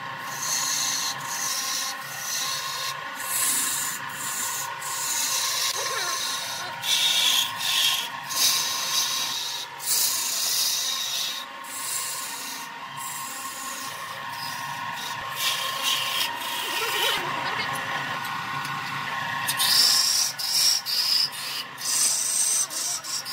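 Wood lathe running with a steady motor hum while a hand-held turning tool cuts into a spinning log, the shavings coming off with a rasping hiss in repeated bursts of one to a few seconds as the tool is pressed in and eased off.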